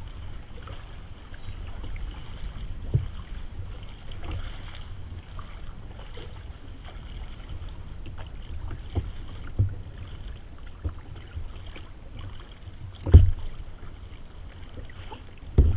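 Kayak paddles dipping and splashing in river water, with wind rumbling on the microphone. A few sharp knocks stand out, the loudest near the end.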